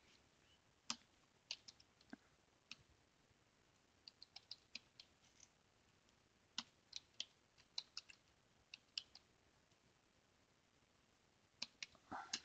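Soft keystrokes on a computer keyboard, typing a shell command: irregular clicks in short clusters with pauses between them, and a louder, longer noise near the end.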